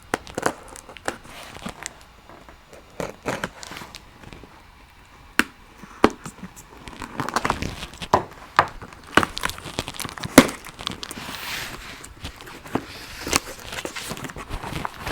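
A cardboard box of tools being opened and unpacked by hand: crinkling and tearing of packaging with many sharp taps and knocks, and longer sliding, rustling sounds in the second half.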